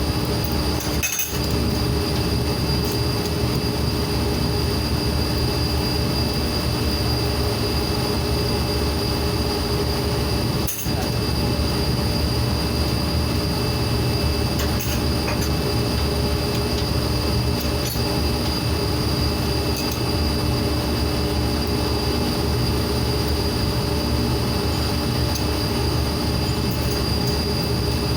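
Steady industrial machinery noise: a dense low hum with several constant whining tones, one of them high-pitched. It dips briefly twice, about a second in and again about eleven seconds in.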